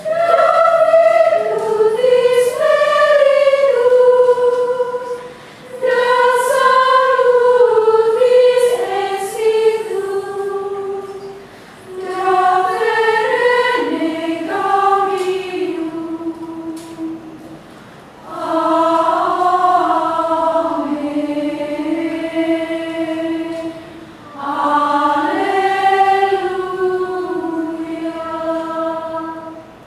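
Women's choir singing Gregorian chant unaccompanied, in a single melodic line, in five phrases with short breaths between them; the chant ends near the end.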